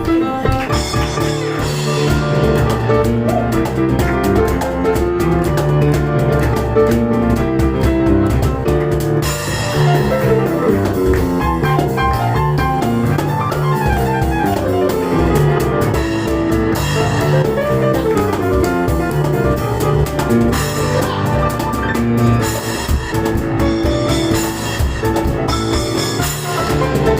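Live instrumental performance by a piano and cajon duo: fast, busy piano runs over driving hand percussion on the cajon.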